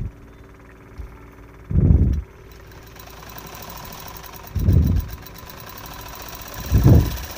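Sewing machine stitching a pleat (dart) into a blouse, run in three short loud spurts with a steady hum and fast needle ticking between them.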